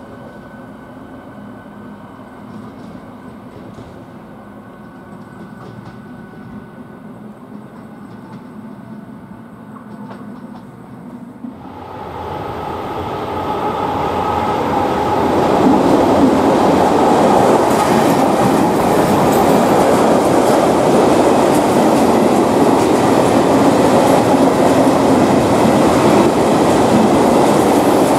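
Quiet, steady hum of a double-deck electric passenger train at the platform, then, after a cut about twelve seconds in, a freight train behind a ČD Cargo class 753 diesel locomotive approaches and its covered hopper wagons roll past close by. The wheels rumble and clatter over the rails, growing louder for a few seconds and then staying loud.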